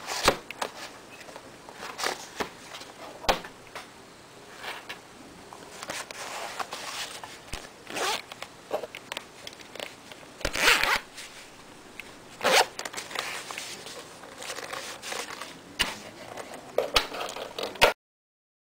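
Zips on soft nylon carry cases being pulled open and closed in several strokes, with fabric rustling and small handling clicks; it cuts off suddenly near the end.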